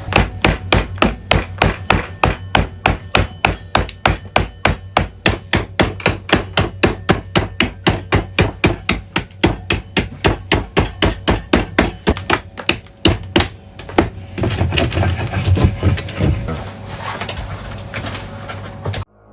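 Hammer blows on wood in a fast, even rhythm of about four strikes a second, then a rougher stretch of uneven knocking, cutting off suddenly near the end.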